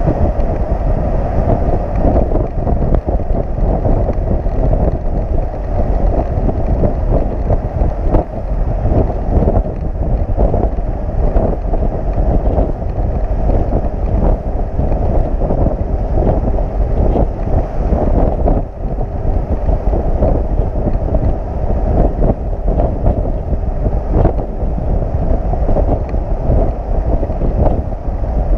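Loud, steady wind rush buffeting the microphone, over the low road rumble of a flatbed tow truck on the move.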